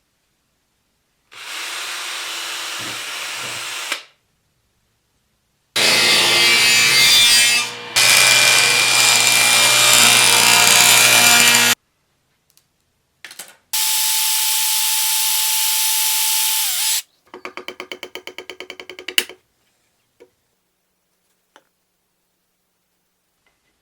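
Power tools running in a series of separate runs of a few seconds each, each cut off suddenly into silence. One run carries a steady whine, and a rapid ticking of about seven clicks a second follows it.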